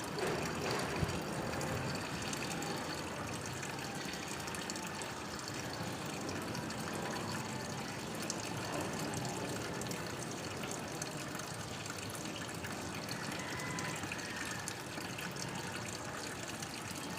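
Automatic washing machine filling with water: a steady rush of water running into the tub.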